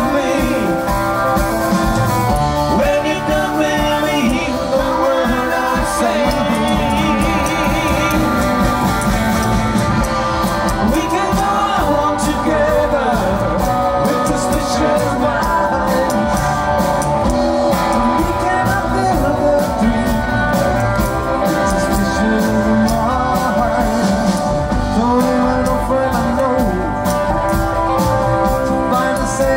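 Rock 'n' roll band playing live: a man singing lead over electric guitar, upright bass, drums and keyboard.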